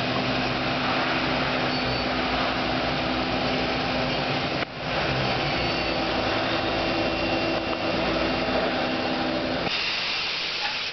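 The 1997 Mazak Super Quick Turn 15S CNC turning center running with its spindle at high speed, around 3,500 to 4,000 rpm. It makes a steady whir with several steady tones in it, which breaks off for a moment about halfway through.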